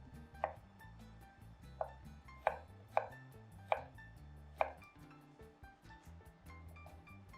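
A kitchen knife chopping vegetables on a cutting board: about six sharp, irregularly spaced knocks in the first five seconds, under soft background music.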